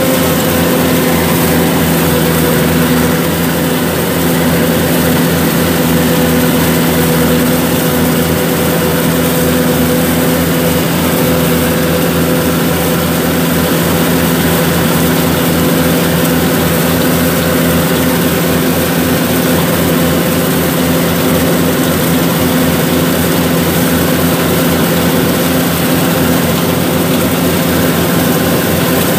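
Yanmar combine harvester running steadily while cutting rice: a constant engine hum at an even pitch, with a mechanical rush from the working machine.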